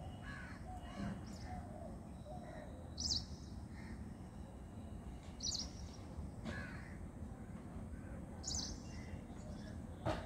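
Outdoor birds calling: a short, sharp, high call repeats about every two and a half to three seconds, with fainter calls among it, over a steady low background rumble. A single knock comes near the end.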